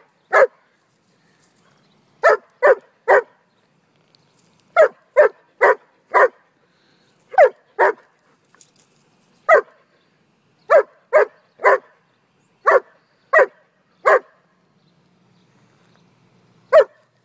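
German shepherd barking close by: loud, sharp single barks in quick groups of two to four, with pauses between, about eighteen barks in all.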